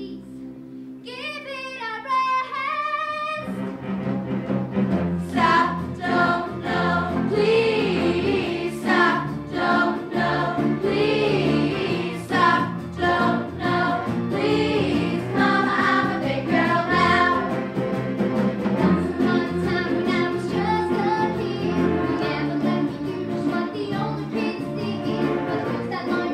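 A large cast of young performers singing a stage-musical number together over instrumental accompaniment. A single voice sings a short line about a second in, then the full ensemble comes in.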